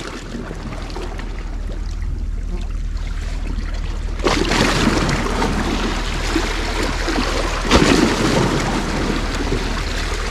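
Small sea waves washing and splashing against breakwater rocks, with wind on the microphone and a steady low rumble underneath. The wash grows louder about four seconds in, with a stronger splash near the end.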